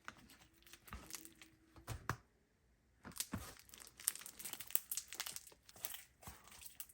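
Crunchy slime being squeezed and worked in the hands, giving a run of small crackles and pops, sparse at first, then denser after a short pause.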